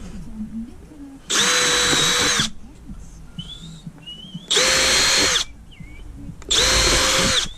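Power drill run in three short bursts of about a second each, its motor whining steadily at speed, while drilling into the timber of a door lining.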